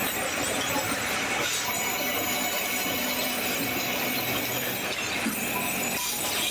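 Large sawmill band saw running and cutting through logs as they are fed past the blade, a dense steady mechanical noise with a high squealing whine that strengthens near the end.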